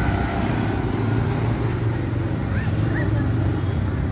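Steady low rumble of a motor vehicle engine running, with two short rising chirps about two and a half and three seconds in.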